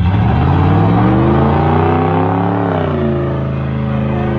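Car engine revving hard during a burnout, with the rear tyres spinning and smoking. The revs climb for about two and a half seconds, ease off slightly, then hold high.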